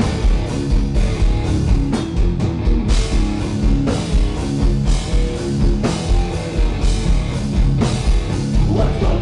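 Live heavy metal band playing loud, with distorted electric guitar, bass guitar and a drum kit pounding steadily underneath.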